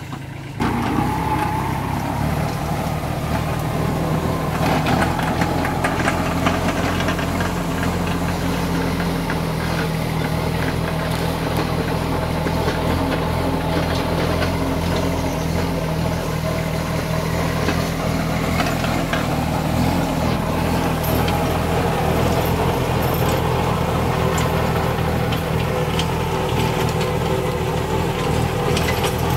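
Kubota compact diesel tractor engine running steadily under load while its PTO drives a mini rotavator tilling grassy soil, the blades churning the earth behind it.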